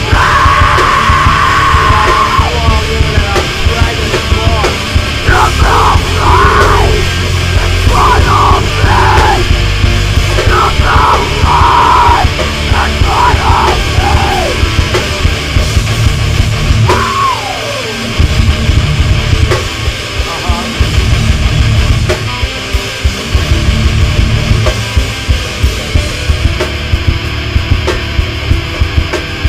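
Metalcore band recording playing loud, with screamed vocals over roughly the first half. The vocals stop about halfway through, leaving the band playing on with steady, pounding drum hits.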